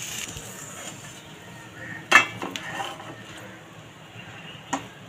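A steel spoon and pan clinking and scraping against a stainless steel plate as fried fish and masala are served onto it: one sharp clink about two seconds in, a few lighter taps just after, and another clink near the end.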